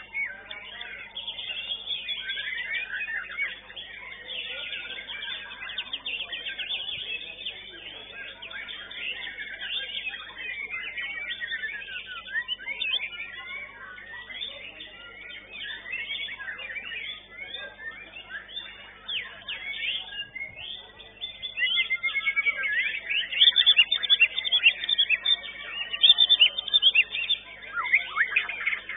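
White-rumped shama (murai batu) singing a fast, varied, unbroken run of whistles, trills and chirps, with louder phrases in the last third.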